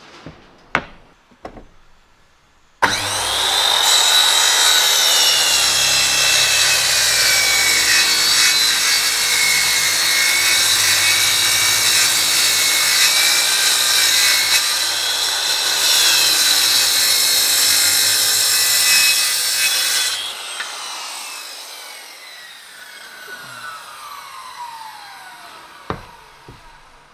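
A Makita circular saw starts suddenly and cuts along a laminated plywood board for about seventeen seconds, its pitch dipping a couple of times under load. It then winds down with a long falling whine after the trigger is released. A few knocks come before the cut, and one after it.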